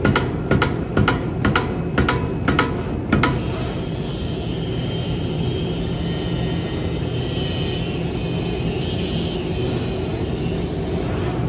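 RUK MCC series CNC flatbed fabric cutting machine running with a loud, steady drone while its knife head cuts fabric. A series of sharp clicks, about two a second, comes in the first three seconds, and a faint high whine sits over the drone after that.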